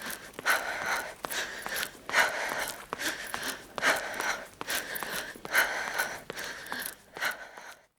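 A girl breathing hard and fast while running, panting in and out with a breath about every second, every other one stronger. The breathing cuts off just before the end.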